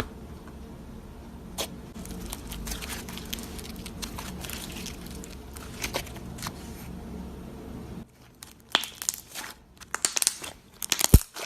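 Slime being squeezed and pressed, giving off crackling, crunchy pops and clicks. The crackles are faint over a low steady hum at first; about eight seconds in the hum drops away and the crackling becomes sharper and louder.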